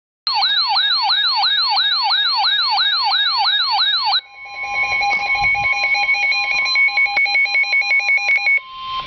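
Emergency Alert System warning sounds. A siren-like tone sweeps up about three times a second for about four seconds. It then switches to a harsh mix of steady electronic tones with rapid chattering pulses, ending with a single steady tone.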